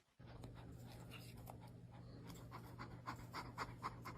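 A dog panting faintly, in quick short breaths that come more often in the second half, over a low steady hum.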